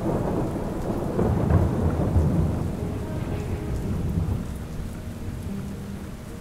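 A long roll of thunder over steady rain, loudest in the first two or three seconds and then slowly dying away.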